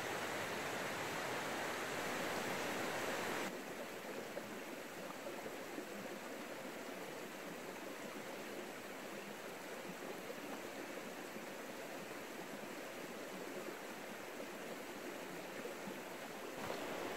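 Steady rush of flowing river water. About three and a half seconds in it drops suddenly to a quieter, softer flow.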